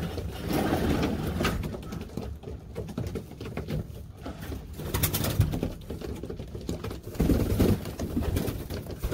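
Domestic pigeons cooing in a wooden loft, low calls coming in bouts, strongest near the start and again near the end, with a few sharp taps between.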